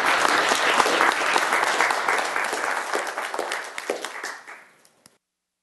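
Audience applauding, dense clapping that thins and dies away over about a second and a half before the sound cuts off completely about five seconds in.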